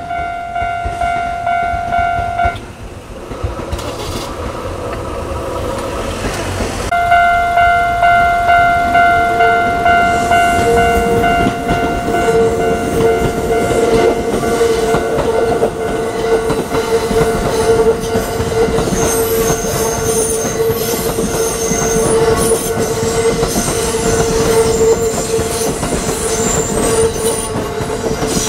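A Kintetsu train running past on the track, with a loud ringing tone that repeats in pulses and drops out for a few seconds early on. In the last third, high wheel squeal sets in.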